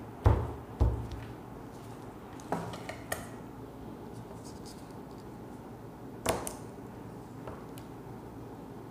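Handling sounds of paper cut-outs and a card-mounted sheet on a wooden table: two sharp thumps near the start, a few light taps and paper rustles about two and a half to three seconds in, and another thump about six seconds in.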